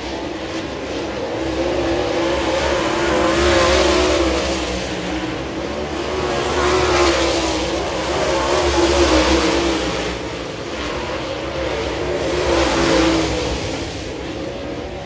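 Dirt late model race cars' V8 engines at full throttle, swelling loud and fading again several times as the cars pass through the turn.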